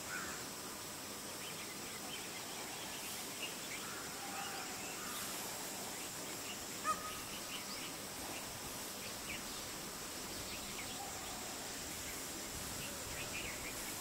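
Outdoor ambience of small birds chirping faintly and irregularly over a steady high-pitched hum, with one sharp tick about seven seconds in.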